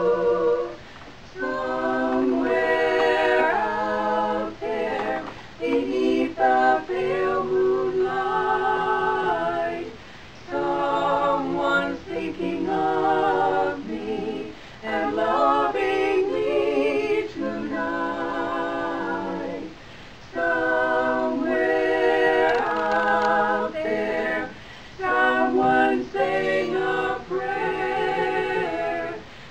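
Four women singing a cappella in harmony, in phrases of a few seconds separated by brief pauses.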